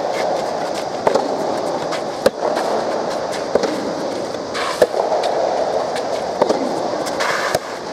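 Soft tennis rally: the soft rubber ball struck back and forth by rackets, sharp pops a little over a second apart, about six of them, over a steady background din.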